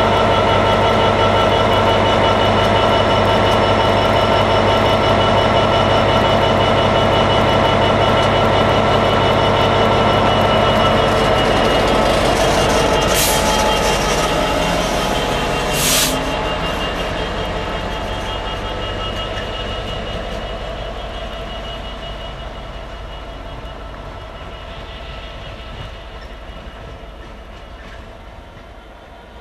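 ShortLines diesel locomotive running close by with a steady engine hum, which fades away steadily from about halfway through as the train moves off. Two short high-pitched squeals about 13 and 16 seconds in.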